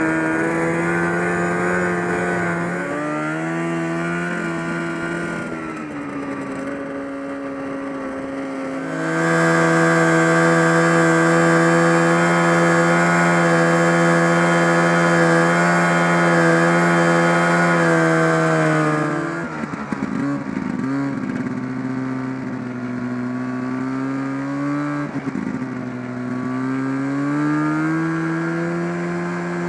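1974 John Deere 300 snowmobile's two-stroke engine running under way, its pitch falling and rising with the throttle. A louder, steady high-speed stretch with a rush of hiss over it runs through the middle, then the engine drops back and wavers before climbing again near the end.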